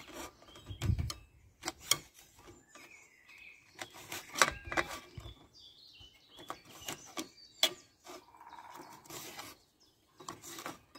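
Kitchen knife chopping red chillies in an enamel bowl: irregular sharp clicks as the blade strikes the bowl, the loudest about four and a half and seven and a half seconds in. Birds chirp faintly in the background.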